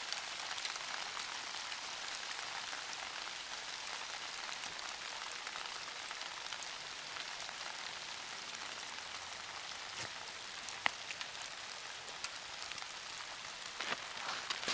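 Rain falling steadily, an even hiss, with a couple of faint ticks about ten seconds in.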